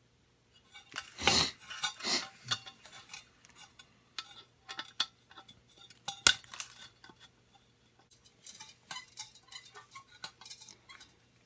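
Small metal clicks, clinks and scrapes of a hand tool and screws on the gas water heater's burner assembly brackets, as the two bracket screws are worked out; one sharp click stands out about six seconds in.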